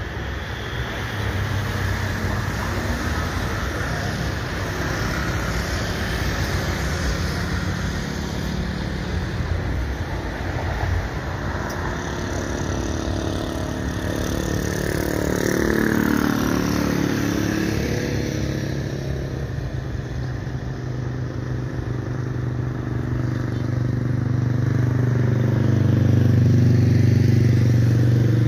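Boeing 777-300ER's two GE90 turbofans at takeoff thrust: a continuous jet roar through the takeoff roll, rotation and climb-out. A tone sweeps downward a little past halfway, and a deep rumble swells louder near the end.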